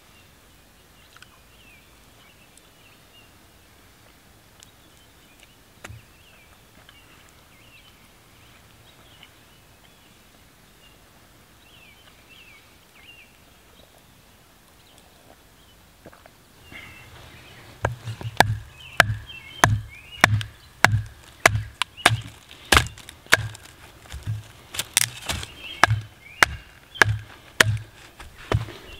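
Faint birdsong, then about two-thirds of the way in, a steady run of sharp wooden knocks, about two a second: a knife being batoned through a stick to split kindling.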